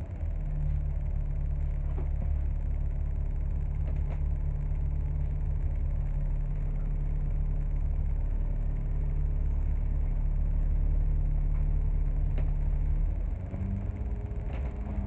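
Bus engine heard from inside the passenger cabin: a steady low drone while the bus moves. About two seconds before the end it drops in level and shifts slightly in pitch, with a few faint rattles along the way.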